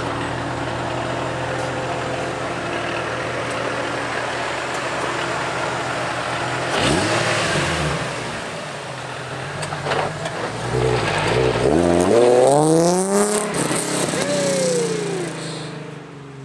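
Supercharged Nissan Z's V6 with a Stillen exhaust idling, then revved: a quick blip about seven seconds in, and a longer climb in revs about eleven seconds in that falls back near the end.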